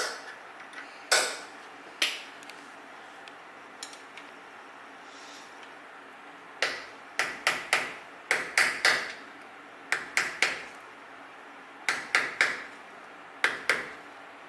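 Hammer blows on steel, bending the lock washer tabs over the wheel-bearing spindle nuts of a Toyota solid front axle. A few single sharp strikes in the first two seconds, a pause, then bursts of several quick blows through the second half.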